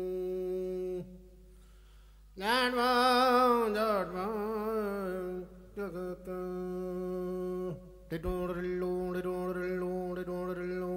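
Bagpipe music from a recording: a steady drone with a chanter melody over it. The music drops to a quiet held note for about a second early on, then the melody comes back louder.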